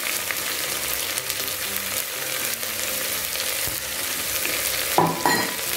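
Sliced onions sizzling steadily in hot coconut oil in a pressure cooker, just added and starting to sauté. Two sharp clinks come about five seconds in.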